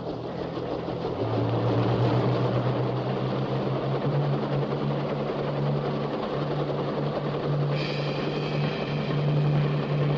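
Kaman HTK-1K unmanned helicopter lifting off and climbing away, its engine and intermeshing twin rotors running as a steady low hum that grows louder about a second in.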